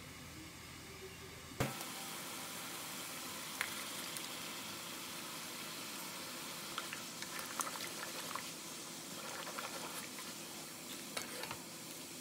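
Broth boiling hard in a nonstick frying pan, a steady bubbling hiss that starts abruptly about a second and a half in. A few sharp clicks of a utensil against the pan come over it, most of them in the second half.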